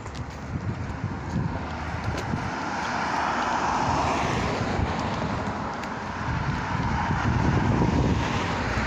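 Road traffic noise from cars passing on a multi-lane street, swelling as a car goes by about three to five seconds in and building again near the end, with wind rumbling on the microphone.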